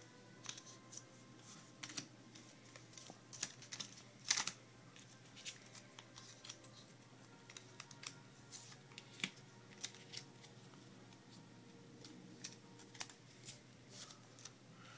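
Magic: The Gathering trading cards and their plastic sleeves and holders being handled and laid down on a table: faint, irregular light clicks and taps, the loudest about four seconds in.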